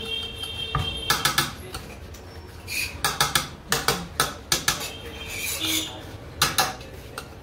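Kitchen knife cutting through toasted sandwiches and striking the stone counter: sharp knocks in quick clusters.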